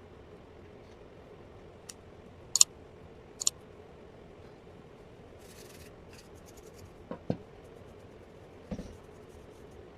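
Small sharp metallic clicks, three in quick succession with the second the loudest, then a brief rustle of light ticks and two duller knocks: a hair clipper's small parts being handled during a repair.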